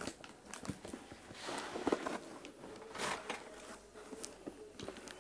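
Plastic-wrapped cardboard box being handled and turned over: rustling of the film and cardboard with scattered knocks and scrapes, busiest about a second and a half in and again around three seconds.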